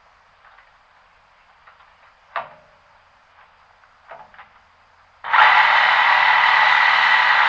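A few light clicks and knocks, then just over five seconds in a loud, steady whirring machine noise with a constant pitch starts abruptly and keeps running.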